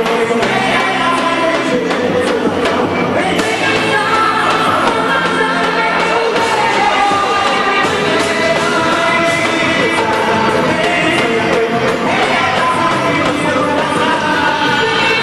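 Festa junina music with singing, playing continuously at a steady loud level.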